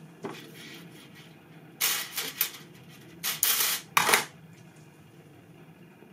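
Bench handling noise: a few short clicks and rustles in quick succession about two seconds in, then another cluster from about three to four seconds in.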